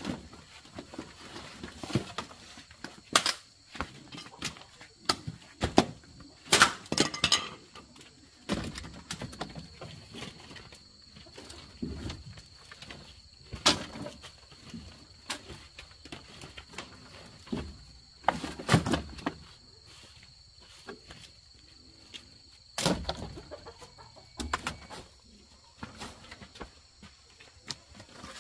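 Wooden sticks and branches knocking and clattering irregularly as they are handled and stacked onto a woodpile. A steady faint high tone runs underneath.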